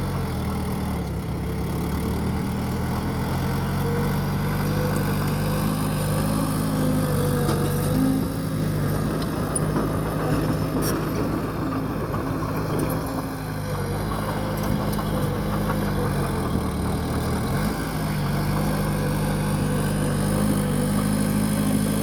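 Bulldozer's diesel engine running steadily under load, its pitch sagging and then picking up again in the second half.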